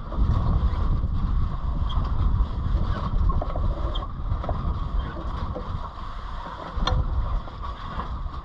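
Wind buffeting the microphone aboard a sailboat under way: a gusty low rumble over a steady hiss, with a single sharp tick about seven seconds in.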